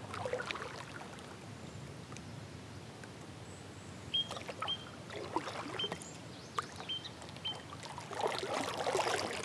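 Kayak paddle strokes in calm water: soft dipping and dripping with scattered light clicks, and a louder swishing stroke near the end. A handful of short high chirps sound about halfway through.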